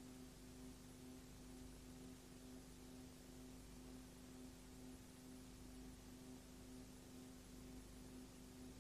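Near silence: a faint, steady electrical hum over hiss, with nothing else happening.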